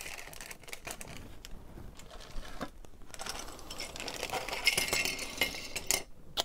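Plastic bag crinkling and plastic model-kit parts on their sprues clicking and rattling as they are handled and set down on a cutting mat, the crinkling densest in the second half.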